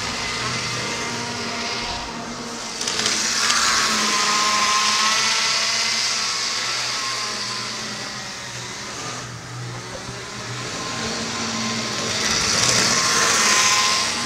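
HO-scale model train running on the layout's track, its small electric motor whining over the hiss of metal wheels on the rails. It swells as the train passes close, about three seconds in and again near the end.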